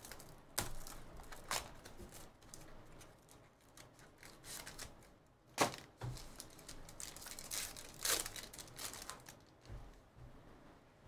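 Plastic shrink-wrap and foil trading-card packs being torn and crinkled by hand, in short rustles and scattered sharp clicks, with one sharper snap about halfway through.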